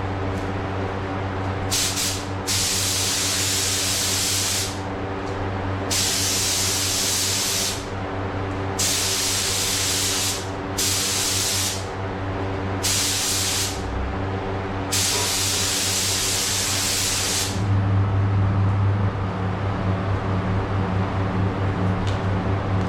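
Paint spray gun hissing in about six separate passes of one to two and a half seconds each, over a steady mechanical hum, which grows louder and pulses after the last pass.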